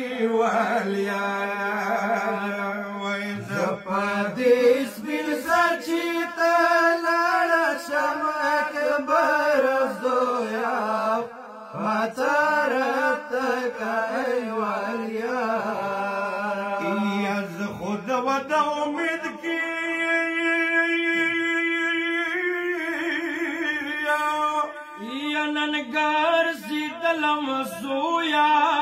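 A Pashto noha, a Shia lament, chanted by men without instruments, in long wavering phrases with some notes held for a few seconds.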